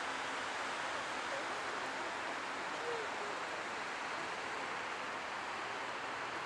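Steady rush of a stream flowing over rocks, an even hiss with little low end.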